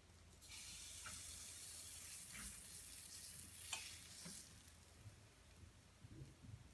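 Banana-oat pancake batter sizzling as it is ladled into a hot, lightly oiled nonstick frying pan. The sizzle starts suddenly about half a second in and fades out about four seconds later, with a few light clicks along the way.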